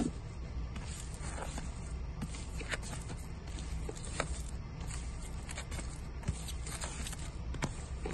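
Cardboard LP jackets being flipped through in a stack of vinyl records: irregular soft taps and clicks as the sleeves knock and slide against each other, with a steady low hum underneath.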